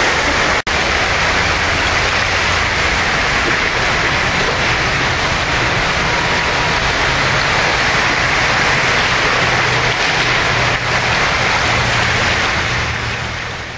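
Floodwater rushing down a flooded street under heavy rain: a steady, loud wash of water, cut off for an instant about half a second in.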